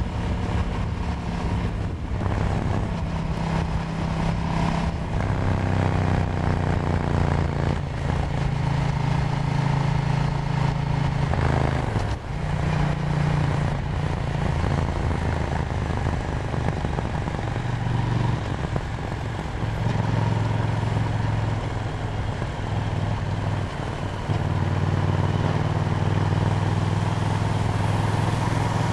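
KTM Duke 790's parallel-twin engine running while riding, its pitch rising and falling with the throttle and gear changes, with a brief drop in level about twelve seconds in. Wind noise runs underneath.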